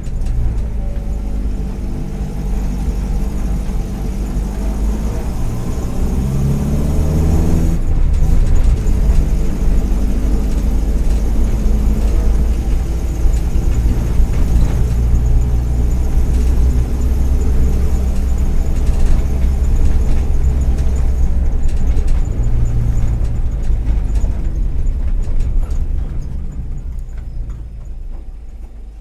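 Volkswagen EA111 1.4-litre four-cylinder engine of a Kombi under way. It rises in revs for a few seconds, then drops sharply about eight seconds in as a gear is changed, and runs on steadily before easing off near the end. The owner blames worn spark plug leads and ignition coil for occasional misfires, and notes an exhaust manifold that is probably cracked.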